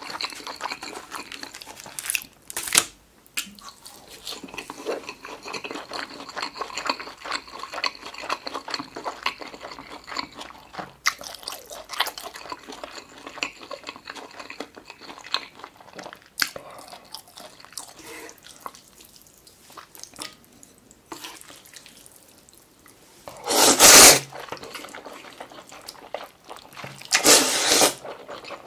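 Close-miked wet chewing of egg-battered beef pancake, with many small mouth clicks. Near the end come two loud slurps as buckwheat noodles are sucked in.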